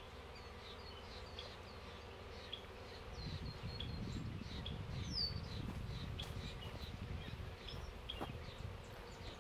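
Russian honey bees buzzing around an opened hive, a steady hum that grows louder about three seconds in.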